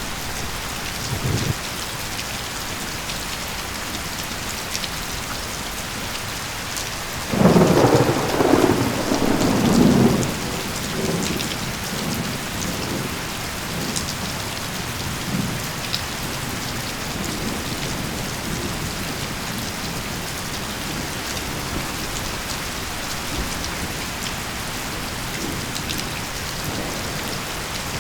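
Steady rainfall with a roll of thunder about seven seconds in that rumbles for about three seconds before fading back into the rain.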